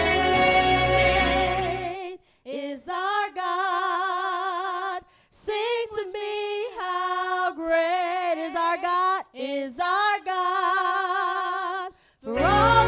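A woman sings a praise and worship song into a microphone. The instrumental accompaniment drops out about two seconds in, leaving her voice alone in long held notes with vibrato and short pauses, and comes back in near the end.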